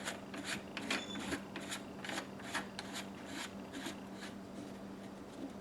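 Plastic retaining cap being screwed by hand onto a Moen kitchen faucet body over a new cartridge: short rasping scrapes of plastic threads, about three a second, thinning out near the end.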